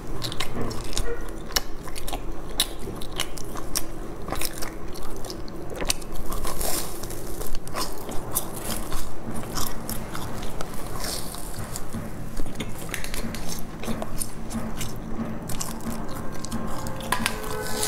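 Crisp crunching bites and chewing of a sesame-crusted fried pastry, close-miked on a lapel microphone, with many sharp crunches throughout.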